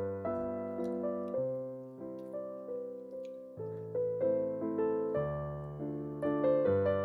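Background music: a gentle solo piano piece, notes struck a few times a second and left to ring.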